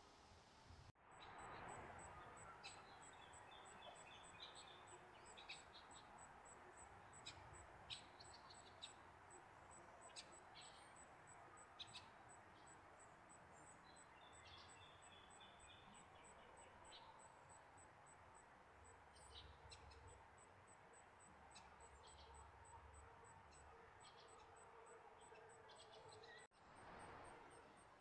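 Faint outdoor ambience with small birds giving scattered short, high chirps and calls, over a steady high-pitched ticking about three times a second.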